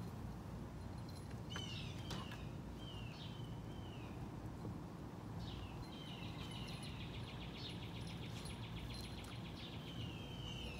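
Outdoor ambience: birds chirping repeatedly in short sweeping calls over steady low background noise, with a rapid trill for about three seconds in the second half.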